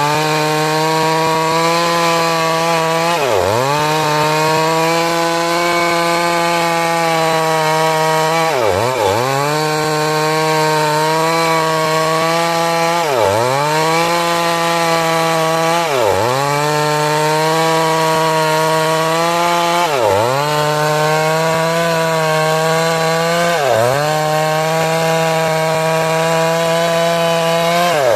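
Stihl MS 382 two-stroke chainsaw at full throttle, ripping lengthwise through a large trembesi (rain tree) log. It runs at a steady high pitch, and about seven times the engine note dips sharply and quickly recovers.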